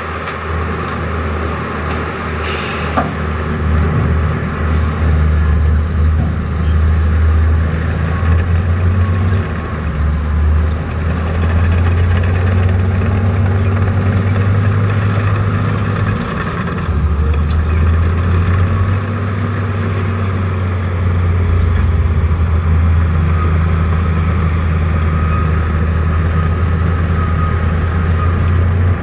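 Heavy diesel engines of a crawler bulldozer and dump trucks running steadily, the deep rumble swelling and easing as the dozer takes and sheds load pushing dirt. About two and a half seconds in there is a short sharp hiss, like a truck's air release.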